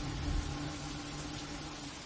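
Monsoon rain falling steadily, with a low rumble that fades over the first second.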